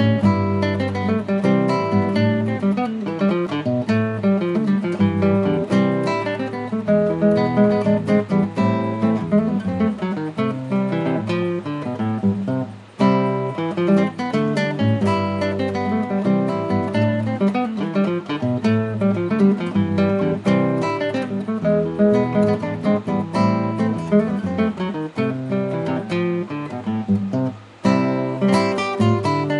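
Music played on acoustic guitar, strummed and plucked, with two brief breaks about 13 seconds in and near the end.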